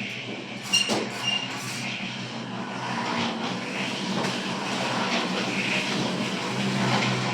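Electric concrete mixer running with a steady motor hum and a rattling churn that grows slightly louder. Two sharp metallic clinks ring out about a second in.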